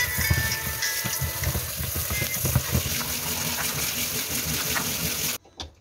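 Food frying in a pan: a steady sizzle with crackles and irregular low knocks of stirring, cutting off suddenly near the end.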